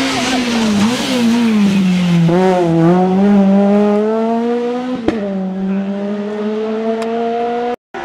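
Citroën C2 rally car engine running hard through a corner. The revs dip in the first two seconds, then climb steadily as the car accelerates away. A single sharp crack comes about five seconds in, and the sound cuts off suddenly just before the end.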